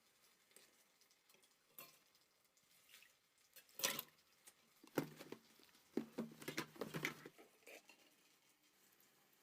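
Sparse light knocks and clicks, handling sounds, with a short cluster about four seconds in and a quicker run of them between six and seven seconds in.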